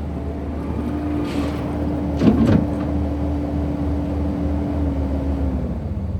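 Kubota SVL95-2s compact track loader running: a steady diesel engine rumble under a whine that drops in pitch near the end, with a loud metallic clank about two seconds in.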